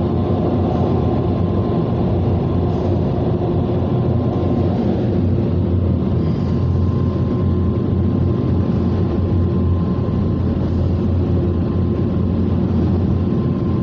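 Onboard dryer blowers of a Ryko Softgloss MAXX rollover car wash, heard from inside the car, running in a loud, steady blast with a constant low hum and a faint steady whine.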